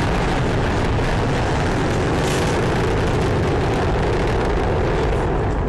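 A loud, steady roar from a rocket crashing to the ground and going up in a fireball, with no single sharp bang.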